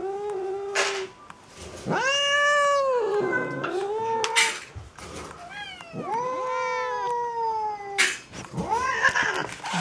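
Domestic cat giving several long, drawn-out meows that slide down in pitch at their ends, begging for food at feeding time.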